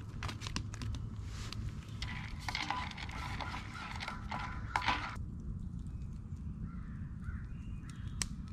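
Metal spoon stirring pasta in a metal camp mug over a campfire, scraping and clinking for a few seconds and stopping about five seconds in. A few sharp clicks come near the start and one near the end.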